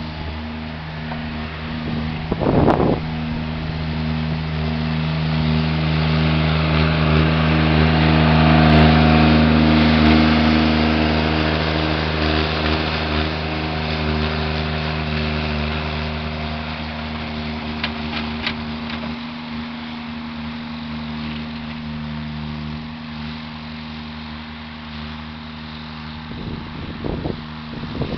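Mini skid steer's engine running under load as it pushes snow with its bucket, growing louder for several seconds and then easing back. A short sharp knock or scrape comes about three seconds in, and more near the end.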